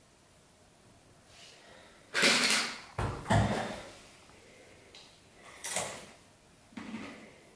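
Movement noise from a person at a desk and chair: a short rustling burst a little after two seconds in, a dull thump about a second later, and two more short rustles near the end as he leans back in the chair.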